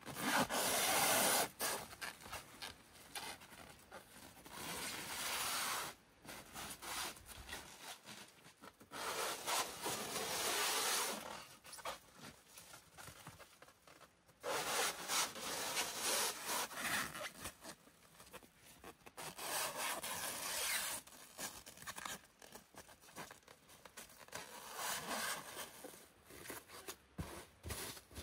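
Plastic stretch wrap being pulled off its roll and stretched around tree trunks, in about six spells of a second or two with short pauses between.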